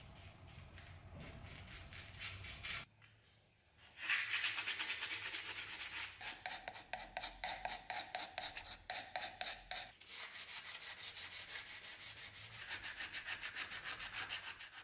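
Hand sanding of old wooden table rods with a sandpaper-wrapped block, stripping old varnish and paint stains. Fast, even back-and-forth strokes, about five a second, with a short break about three seconds in, after which the strokes are louder.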